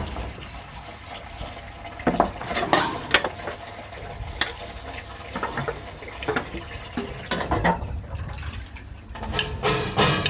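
Tap water running into a plastic tub while steel dishes are scrubbed by hand, with scattered sharp clinks and clatters of the metal plates.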